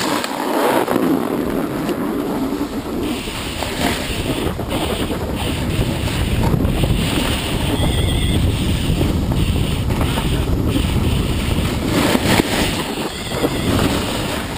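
Rushing wind rumbling on the microphone with the scraping hiss of edges sliding over packed, groomed snow during a fast downhill run. The low wind rumble grows heavier about three seconds in as speed picks up.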